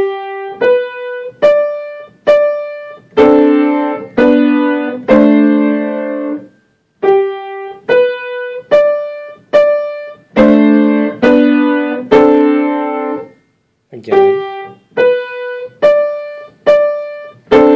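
Samick piano played slowly: a rising right-hand line of four single notes, G, B, D, D, followed by three held chords, each over a low D in the left hand. The phrase is played three times with a short pause between each.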